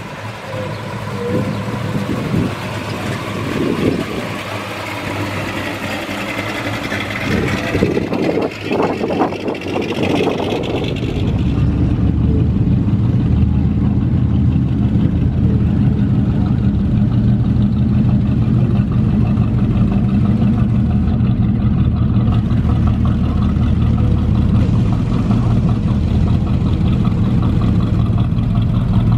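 Rat rod's open-headered engine idling close by with a steady, loud low rumble, starting abruptly about a third of the way in. Before that, mixed street noise from passing cars.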